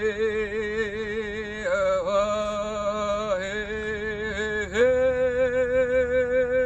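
A woman singing wordless, long-held vocal tones with a wavering vibrato, gliding between notes a few times before settling into one steady held note about five seconds in.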